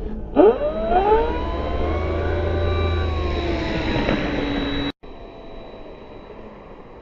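RC warbird's electric motor and propeller spooling up with a rising whine, then running steady at high power. About five seconds in the sound cuts abruptly to a quieter, steadier motor drone.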